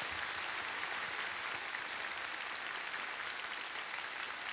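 Studio audience applauding, a steady patter of many hands that slowly eases off.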